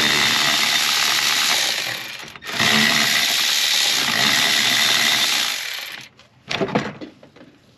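A power tool running in two long stretches, with a brief stop about two and a half seconds in, then cutting off about six seconds in; a short separate noise follows.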